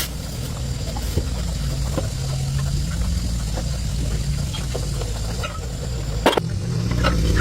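Tractor engine running steadily at idle, with a sharp click or knock about six seconds in.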